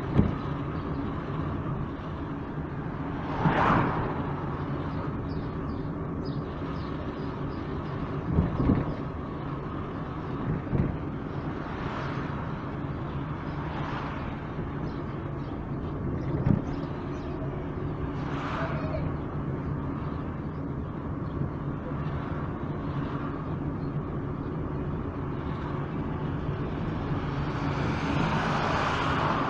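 Car driving slowly: a steady engine hum and tyre noise, heard from inside the car. A few brief swells of noise rise and fall along the way, and there are a couple of short knocks, one about 8 seconds in and one about 16 seconds in.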